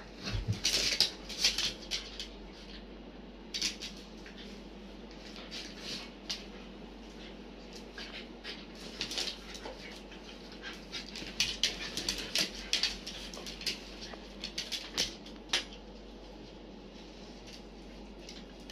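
A Korean Jindo and a bichon–schnauzer mix play-fighting: irregular clusters of scuffling and short dog vocal sounds, with brief pauses, dying down in the last few seconds.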